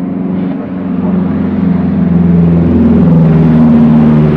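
Airbus A320neo airliner's jet engines droning on approach to landing, growing louder as the aircraft comes closer, with a low hum whose tones drift a little in pitch.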